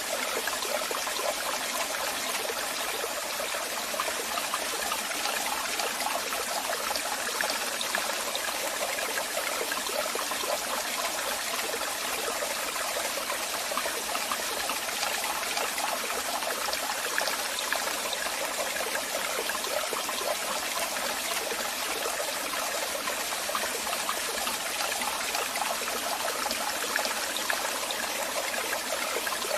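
Waterfall: water falling and splashing in a steady, even rush, with a bright, hissing character and little deep rumble.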